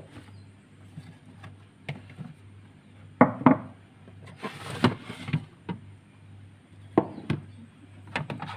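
Irregular knocks and clunks from refrigerator parts being handled during cleaning, with a short rush of noise just past the middle, over a faint steady low hum.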